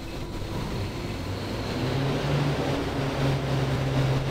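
Diesel engine of an Atlas Copco XAS 1800 portable air compressor starting: it cranks, catches about two seconds in and settles into a steady, louder run as it comes up to warm-up speed.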